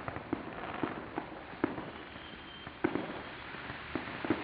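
Firecrackers and small fireworks going off: about ten sharp pops at irregular intervals over a steady background hiss.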